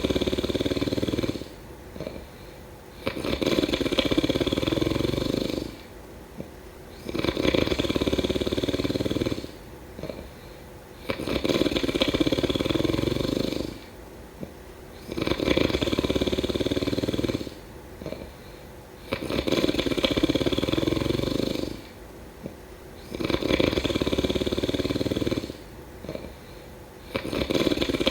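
A sleeping person snoring in a steady rhythm: a loud snore about every four seconds, each lasting two to three seconds, with quieter breathing between.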